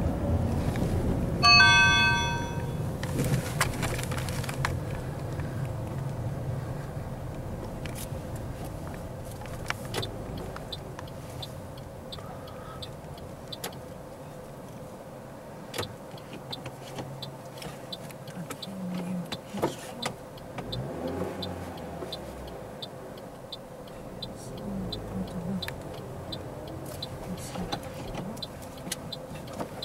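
Car driving on city streets, heard from inside the cabin: a steady engine and road rumble. About two seconds in there is a brief ringing tone of several pitches, and through the second half a light ticking, about two a second.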